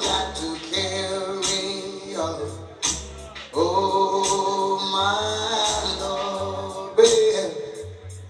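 Sound system playing a record with a male singer over a deep bass line and ticking cymbals. The singer holds some long notes.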